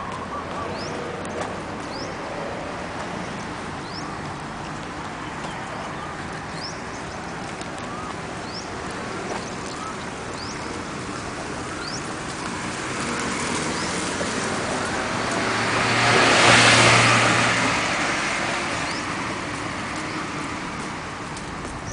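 Road traffic with a car passing close by, growing louder to a peak about two-thirds of the way through, then fading away. Short high bird chirps repeat about once a second through the first half.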